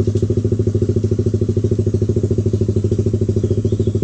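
Motorcycle engine running at a steady, unchanging pitch with a fast, even pulse.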